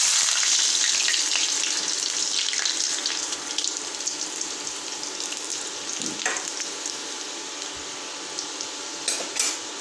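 Chopped garlic and dried red chillies hitting hot oil with cumin seeds in a kadhai: a loud sizzle that bursts up at once and then slowly settles to a quieter, steady frying hiss. A couple of short clicks near the end.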